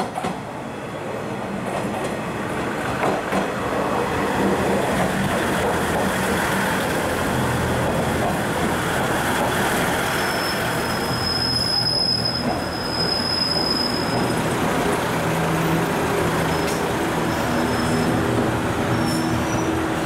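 JR KiHa 110-series diesel railcars pulling in along a station platform: diesel engines running and wheels rumbling over the rails, growing louder over the first few seconds. A thin, high wheel squeal sounds for a few seconds from about ten seconds in.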